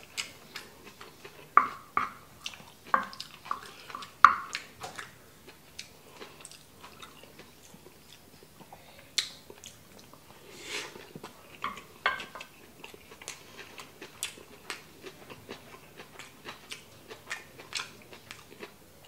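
Close-miked chewing and mouth sounds of a person eating a mouthful of kimchi fried rice. In the first few seconds, a wooden spoon clicks and knocks against a frying pan while scooping.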